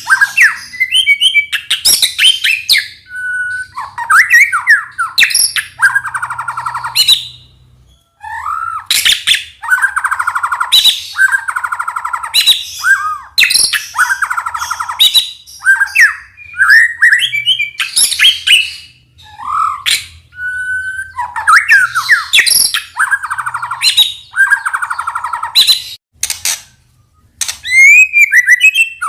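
White-rumped shama (murai batu) singing a loud, varied song. Gliding whistles alternate with harsh, buzzy rattling phrases, delivered in quick bursts with brief pauses.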